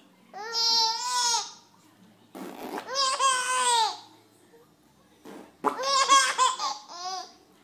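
Baby laughing in three long, high-pitched bouts, each about a second long, with short pauses between them.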